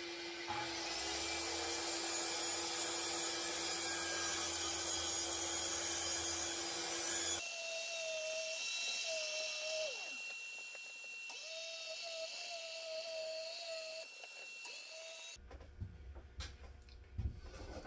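Circular saw running as it cuts along a plywood fence through a quarter-inch luan plywood sheet, together with the steady noise of a dust-extraction vacuum on the saw's hose. About halfway through, the sound changes to a thinner, wavering whine. The saw stops a couple of seconds before the end, leaving a few light knocks.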